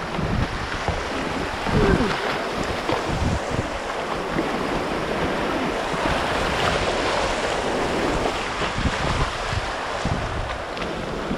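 Rushing whitewater of class II river rapids, a steady dense rush of water, with wind buffeting the microphone in low gusts near the start and again near the end.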